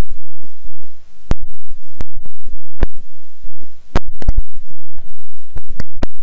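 Computer keyboard typing: loud, irregular sharp keystroke clicks with hissy noise between them.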